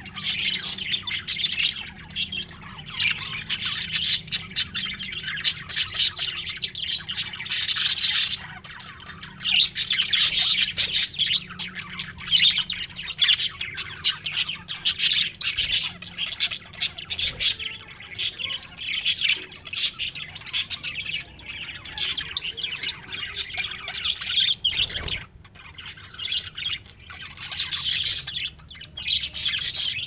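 A flock of budgerigars chattering continuously in an aviary: fast, overlapping warbles, chirps and squawks, with a few brief lulls.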